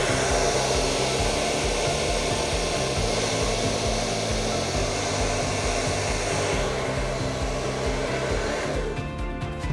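Hair dryer blowing steadily, switching off about nine seconds in.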